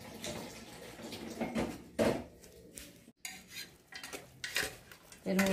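Cooking pots and utensils clinking and clattering as they are handled, with a few sharp knocks, the loudest about two seconds in. The clatter breaks off for an instant a little after three seconds.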